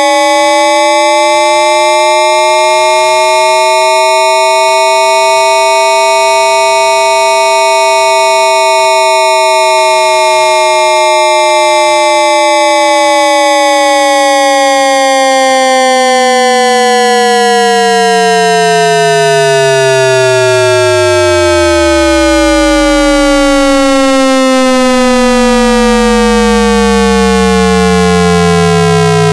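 AM radio sound effect: a loud, continuous cluster of whistling tones that slowly drift in pitch and cross one another. The lowest tone sinks to a deep hum about three quarters of the way through, and another climbs back up near the end.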